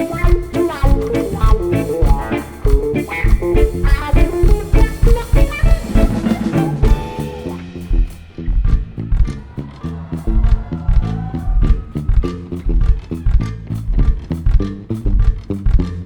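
Rock band playing an instrumental passage of a song live: a busy guitar melody over bass and drums. About halfway through the melody thins out, leaving mostly bass and a steady drum beat.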